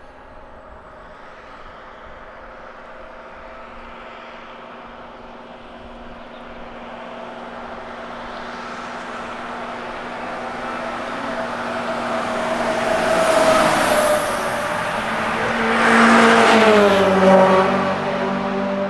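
Racing cars approaching and passing at speed, their engines growing steadily louder to two close passes near the end. The engine pitch drops as the second car goes by.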